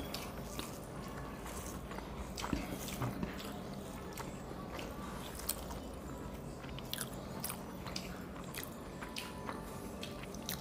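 Close-up eating sounds: rice and curry being mixed by hand on plates and chewed, with many small sharp clicks and mouth smacks over a faint steady low hum.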